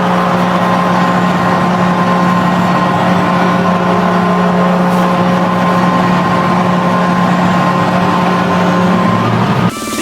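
Ice hockey arena goal horn (a real air horn) blaring one long, steady, low note over a cheering crowd, cutting off near the end.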